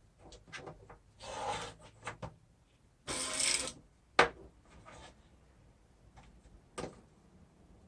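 Scattered rubbing and scraping sounds with a couple of sharp clicks, from a car window regulator and its wiring being handled on the bench.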